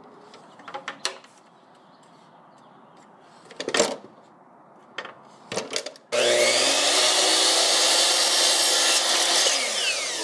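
A few knocks and clicks as wooden trim is handled on the saw table, then about six seconds in a Bosch miter saw's motor starts abruptly and runs loud and steady for about three seconds as the blade is lowered through the trim. Near the end the motor is switched off and winds down, its pitch falling.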